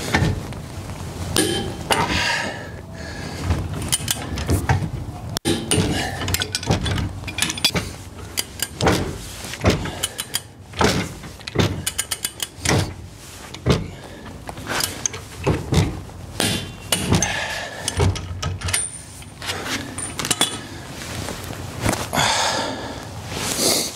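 A long torque wrench and socket working the steel bolts of a weight-distribution hitch's ball mount, which are being torqued down to 257 lb: irregular metallic clicks, clanks and knocks as the wrench is heaved on and reset.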